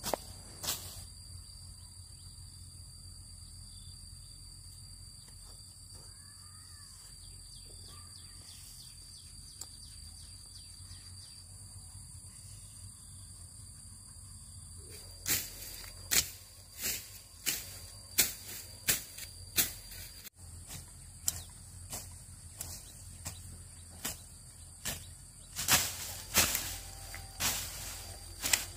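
Insects chirring steadily in a constant high drone. From about halfway, a run of sharp knocks comes one or two a second and gets louder near the end.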